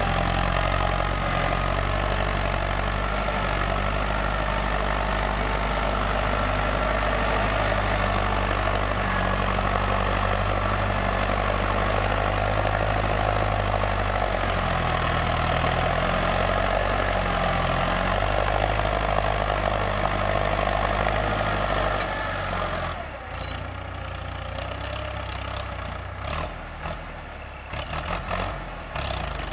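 Ford 6610 tractor's four-cylinder diesel engine running steadily under load while pulling a disc plough through dry soil. About three-quarters of the way in it becomes quieter and more distant.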